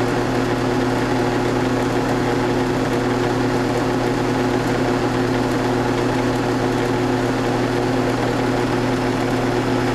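Round-column mill-drill running steadily, its motor and spindle giving a constant hum with an even pitch.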